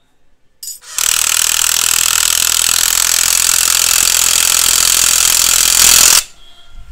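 Cordless impact wrench tightening the magneto rotor nut on a motorcycle crankshaft: a short blip a little under a second in, then it runs continuously on the nut for about five seconds and stops abruptly.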